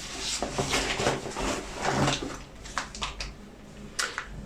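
Irregular rustling and a few light knocks of packaged items being handled and pulled out of a bag.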